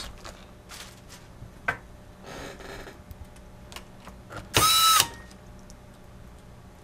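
Small electric screwdriver driving a laptop keyboard screw: a short motor whine lasting about half a second, near the end of the second third, with a few light clicks and a softer, briefer whirr before it.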